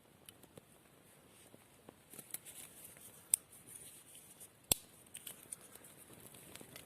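Small campfire of dry grass, leaf and needle tinder burning, with scattered light crackles and two sharp pops about three and five seconds in.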